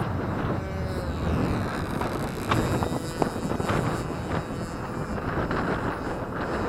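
Wind buffeting the microphone, with the faint drone of a model airplane's 8cc gasoline engine in flight under it. Two sharp knocks midway.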